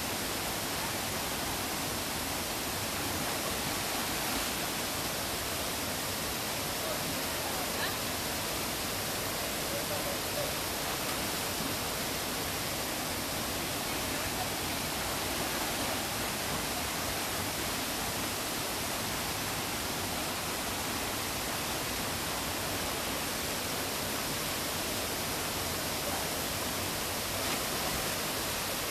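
Steady rush of a small waterfall pouring into a rock pool.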